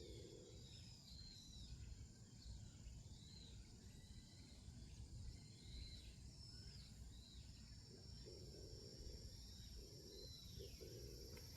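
Faint wild birdsong: short, curving chirps repeated again and again, over a low wind rumble and a steady high insect whine.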